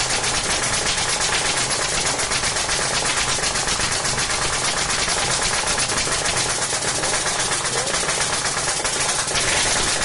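Nail gun firing in a rapid, continuous string of sharp shots, like a machine gun, without a break.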